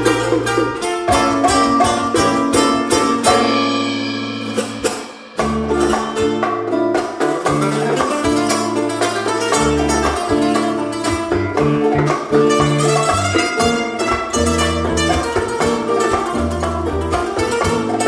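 Live band music: a nylon-string classical guitar plays over electric bass and drums and hand percussion. Between about three and five seconds in the bass and drums drop away and the sound thins and fades, then the full band comes back in sharply.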